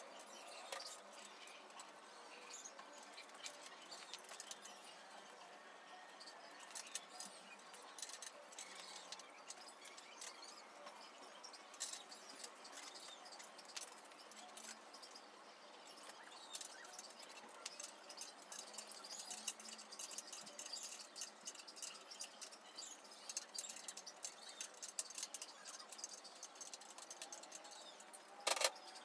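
Faint, irregular clicking and ticking of small metal parts being handled and fitted on a steel press frame, getting busier in the second half, with a sharper knock near the end.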